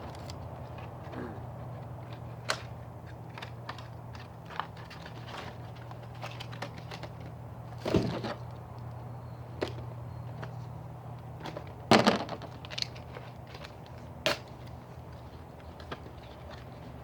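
Plastic booster-pack packaging and collectible figures being handled: scattered light clicks and crinkles, with a few louder crackles, two of them about eight and twelve seconds in.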